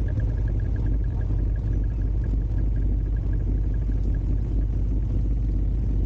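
ATV engine running steadily while riding on a dirt trail, heard as an even low rumble.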